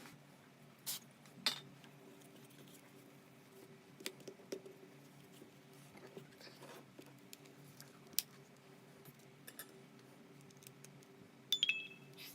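Scattered light clicks and taps of small hard parts and tools being handled, over a low steady hum. A quick cluster of clinks near the end rings briefly.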